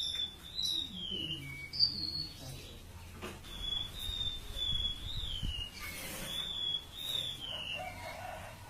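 Siur siur laut songbird singing: a series of high, thin whistled notes, many sliding downward in pitch, repeated every second or so.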